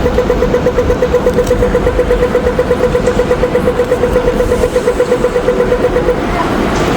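An electronic warning tone pulsing rapidly, about eight or nine beeps a second, over a steady rumble, cutting off about six seconds in.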